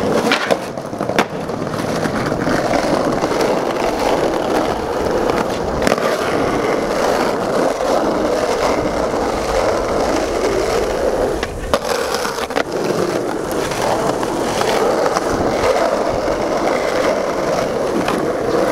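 Skateboard wheels rolling steadily over concrete and asphalt, with a few sharp clacks of the board striking the ground: near the start, about six seconds in, and twice around twelve seconds.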